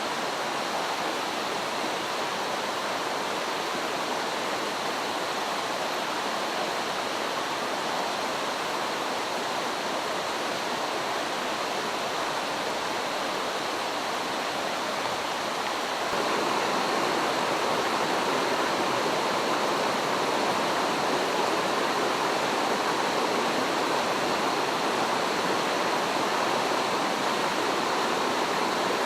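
Mountain stream rushing steadily over rocks. A little past halfway the rush gets louder and brighter and stays so.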